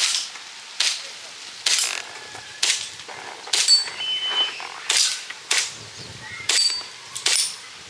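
Airsoft pistol firing about nine single shots, roughly one a second, at steel targets; several shots are followed by a short metallic ring, the sound of a hit on a steel plate.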